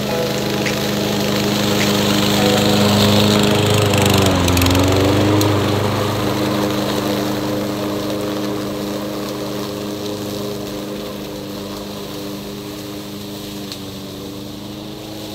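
Toro Recycler 22-inch push mower running while mulching dry leaves. The engine note dips briefly in pitch about four seconds in, then the sound slowly fades as the mower moves away.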